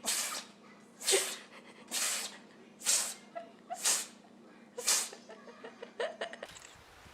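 A pet animal sneezing again and again in a fit: six short, sharp sneezes about a second apart.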